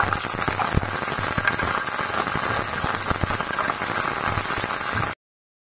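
Cashew nuts and raisins sizzling and crackling in hot melted ghee in a frying pan, a steady hiss with many small pops. The sound cuts off suddenly about five seconds in.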